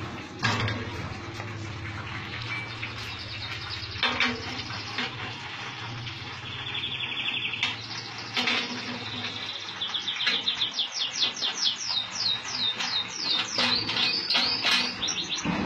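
Metal clicks and clunks from the lid and clamp handle of a stainless-steel vacuum fryer being closed and screwed down by hand. Over the last five seconds comes a fast run of high, rising chirps, the loudest sound in the stretch.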